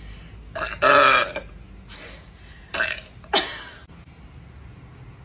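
A woman belching three times: a loud, long belch about a second in, then two shorter belches close together around three seconds in, the last one falling in pitch.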